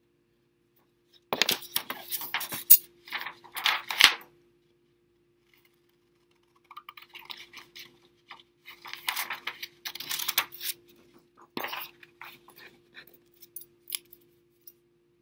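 Construction paper and craft supplies being handled and rustled, in two spells of crinkling with sharp clicks and a short pause between them.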